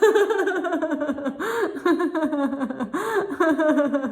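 A woman laughing heartily as a laughter-yoga exercise: quick runs of "ha" pulses falling in pitch, with a fresh burst of laughter about every second and a half.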